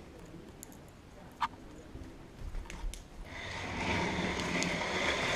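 Electric motors of radio-controlled cars whining as they launch off the line about three seconds in, growing louder, after a single sharp click just before.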